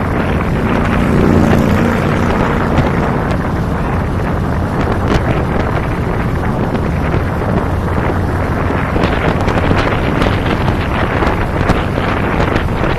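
Strong wind buffeting the microphone of a camera on a moving cruiser motorcycle, with the motorcycle's engine running underneath at road speed.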